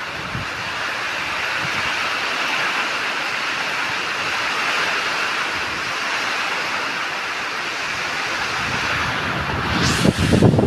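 Heavy rain pouring down in a steady hiss during a rainstorm, with a louder low rumble near the end.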